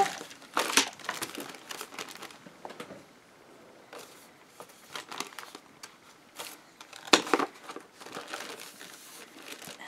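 Wax paper crinkling and rustling as a book with the sheet tucked into its hinge is handled, with sharper crackles about half a second in and again about seven seconds in, and a quieter spell in between.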